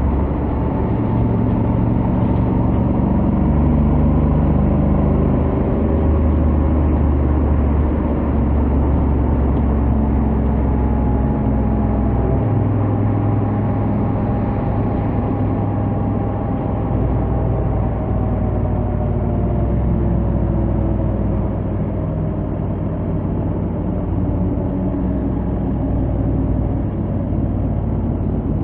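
Honda X-ADV 750's 745 cc parallel-twin engine and stock exhaust running at highway speed, under a steady rush of wind and road noise. The engine note steps up and down in pitch several times as the speed changes.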